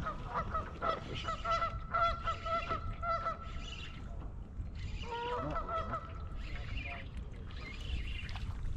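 Geese honking in a rapid run of calls over the first three seconds or so, then another burst of honks a little past the middle, over a low steady rumble.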